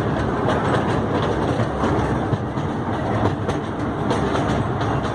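Toy train running along its track: a steady rumble with wheels clacking over the rail joints.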